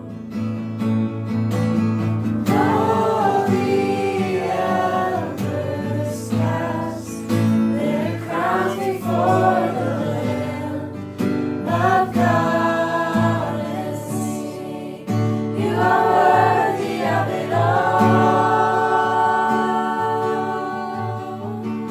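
Worship music: a choir singing long, gliding vocal lines over steady sustained low instrumental notes.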